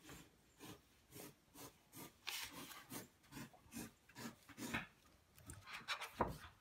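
Red pencil scratching across paper in a quick run of short strokes, about two a second, crossing out pictures on a sheet in a folder. A soft thump near the end.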